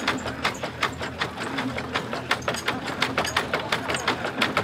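Hand-cranked wooden winnowing mill (fanning mill) being turned while grain is fed into its hopper: a quick, even mechanical clacking, about five or six clacks a second.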